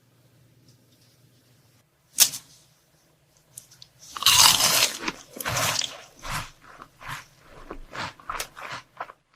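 Crunchy chocolate treats being bitten and chewed close to the microphone. There is a single sharp crack about two seconds in, then from about four seconds a run of loud crunches at uneven intervals.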